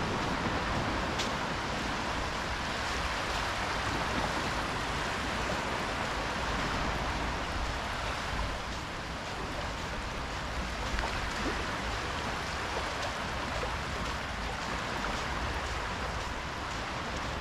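Small sea waves lapping and washing up a sandy beach at the water's edge, a steady wash with no breaks.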